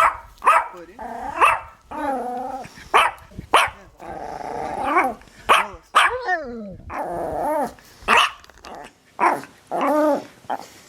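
Dog barking: a run of short, sharp barks mixed with longer drawn-out calls that waver and slide down in pitch.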